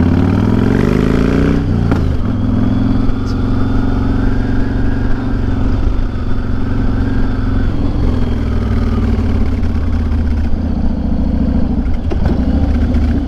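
Yamaha Raider cruiser's 1900cc V-twin engine heard from the saddle while riding: it revs up in the first gear, shifts about two seconds in, then runs on at a steadier cruising speed with small changes in throttle.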